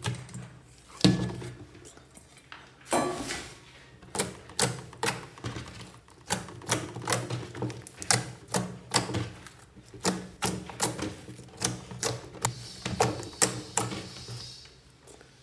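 Slime being squished and kneaded by hand, making a run of sharp, wet clicks and pops, about two a second.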